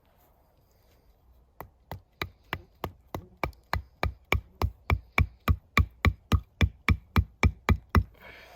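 Steady hammering: about twenty sharp knocks at roughly three a second, growing louder over the first few strikes and then stopping, followed by a short rustle.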